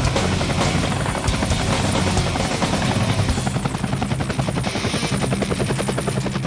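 Helicopter flying, its rotor beating in a fast, even chop over a steady low engine drone.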